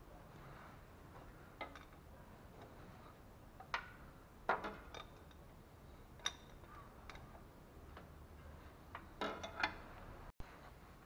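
Scattered sharp metal clicks and clinks, about eight of them at uneven gaps, from a wrench working on the transfer case filler plug as it is tightened.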